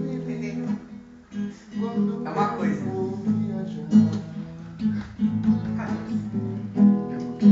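Music with a strummed acoustic guitar: chords struck repeatedly over sustained notes, with a brief lull about a second in.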